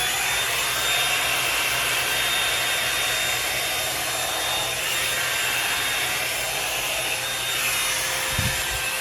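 Revlon One-Step hair dryer and styler brush running steadily, a rush of blown air with a high motor whine, as it is worked through hair.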